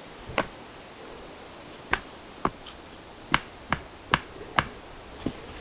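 A wooden stake being hammered down into stony ground to loosen the soil: eight sharp knocks, one on its own near the start, then a pause and a run of seven quicker knocks about half a second apart.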